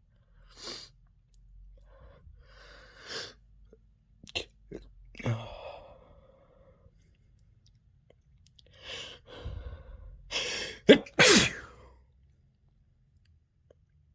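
A person sneezing from allergies: short breaths and sniffs through the first half, then a build-up of in-breaths and a loud, sharp sneeze about eleven seconds in.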